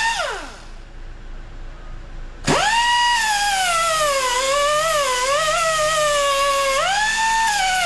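Angle grinder grinding metal back flush, its whine wavering in pitch as it bites. It winds down right at the start, stops for about two seconds, then starts again about 2.5 seconds in and runs on.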